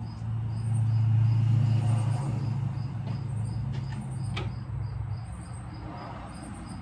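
Electric fuel pump humming steadily as the key is switched on, priming and pressurizing the fuel system of the LSA-swapped 1950 Chevrolet Deluxe; the hum is strongest in the first couple of seconds and fades out about five seconds in. A faint high pulse repeats about four times a second throughout.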